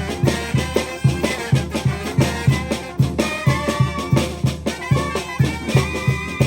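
Oaxacan brass band (banda de viento) playing: brass instruments carry a held-note melody over a steady beat from the bass drum.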